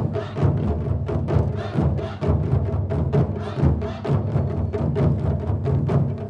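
Japanese taiko drum ensemble playing a fast, dense rhythm: many quick strikes on deep-sounding drums, ringing into one another at a steady level.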